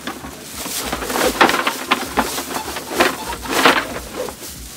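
Heavy fabric storage bag rustling and flapping in several bursts as it is pulled off a folded boat's parts.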